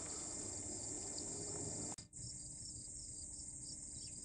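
Steady high-pitched chorus of crickets, with a brief drop-out about two seconds in where the recording cuts.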